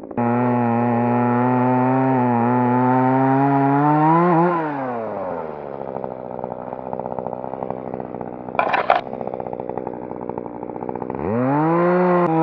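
RYOBI ES-3035 chainsaw running at full speed for about four and a half seconds, then slowing to a lower running pitch. A short sharp rattle comes about two-thirds of the way through, and the saw revs up again near the end and drops back.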